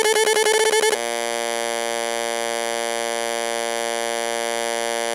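Small Budweiser wired speaker buzzing with electronic, chiptune-like tones from a plug that is not properly inserted, which the owner puts down to an overactive amplifier. A fast warbling tone switches about a second in to a steady, harsh buzzing tone.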